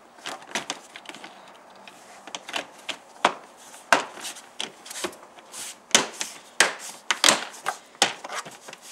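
Plastic trim cover of a Tesla Model 3 front trunk being pressed down by hand, its clips snapping into place: a string of irregular sharp clicks and knocks of hard plastic.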